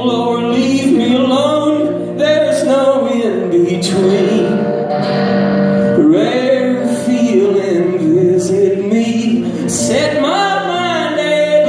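A man singing a slow folk song live, accompanying himself on an electric guitar; long, wavering sung notes over held, ringing guitar chords.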